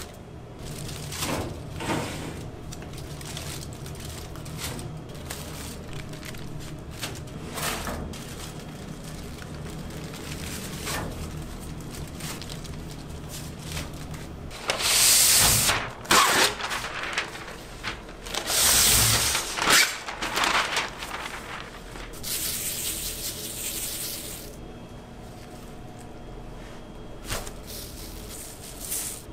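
Aluminium foil crinkling and rustling as foil-wrapped ribs are handled and pressed down on a smoker's metal grate, with scattered small crackles, then three loud rustling bursts about halfway through.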